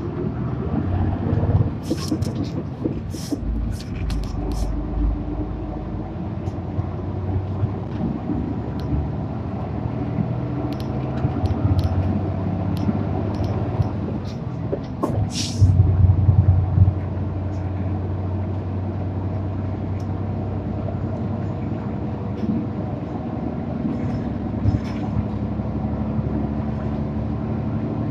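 Isuzu PJ-LV234L1 city bus's diesel engine running as the bus drives, heard from inside the cabin, its pitch climbing at the start as it pulls away. There are scattered sharp clicks early on and a short air hiss about halfway.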